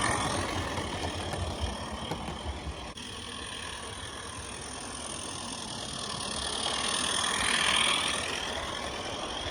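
Live steam Regner Lumberjack locomotive running on the garden railway track: a steady hiss and rumble of steam and wheels that fades over the first few seconds, then grows to its loudest about eight seconds in as the train comes near.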